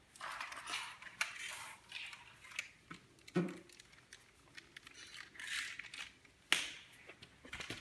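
Rustling and crinkling of plastic wrappers with light clicks and taps of plastic eggs and small toys being handled on a tile floor, and one sharp click about six and a half seconds in.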